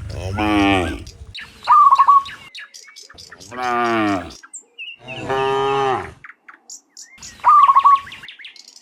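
Cattle mooing: three long, low moos, the first falling in pitch. Between them come two short, loud, higher calls, the loudest sounds.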